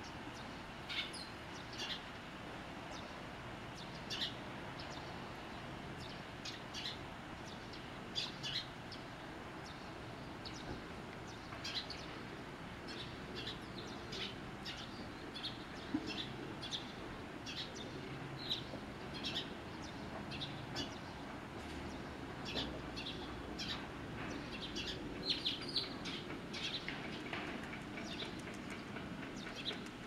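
Small birds chirping in short, sharp calls, one at a time or in quick little clusters, scattered over a steady low background hum.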